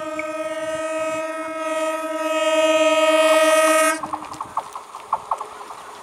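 Electric train's horn held on one long steady note, growing louder, then cutting off sharply about four seconds in. The clicking and clatter of wheels over rail joints follows.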